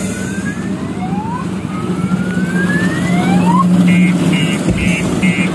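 Electronic siren sound effects, the kind played from a fairground kiddie-car ride: a few rising whoops, then from about four seconds in a quick high beeping at about two beeps a second. A steady low hum runs underneath.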